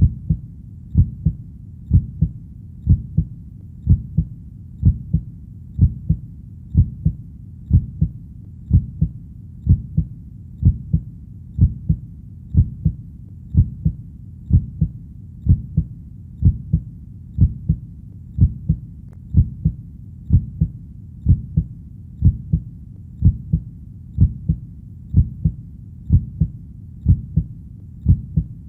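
Heartbeat, a steady double lub-dub beat about once a second, low and muffled, with a faint steady hum beneath.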